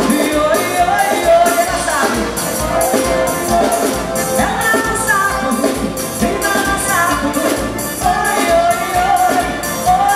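Live forró band playing through a PA: a singer over accordion, electric guitar and drums, with a steady dance beat.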